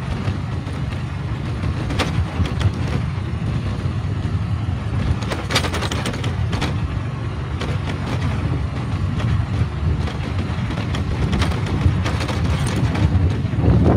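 Motorcycle running steadily while being ridden along a rough road, a low engine and road noise with scattered short knocks and rattles.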